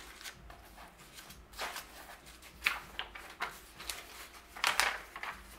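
Glossy magazine pages being turned by hand: several brief papery rustles and crinkles.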